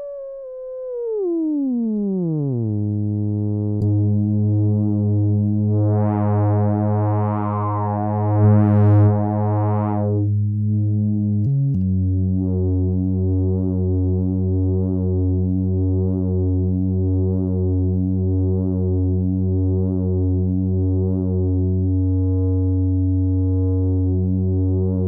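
Moog WerkStatt-01 analog mono synth: a single tone glides down over about two seconds into a low bass note. The note then pulses steadily, grows brighter for a few seconds in the middle, breaks off briefly about halfway and carries on pulsing.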